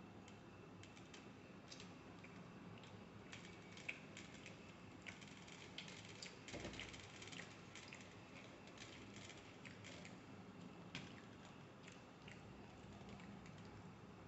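Faint crackling and scattered small clicks of flaky Kerala parotta being torn apart by hand on a stainless steel plate, with fingers brushing the plate; the clicks come thickest in the middle.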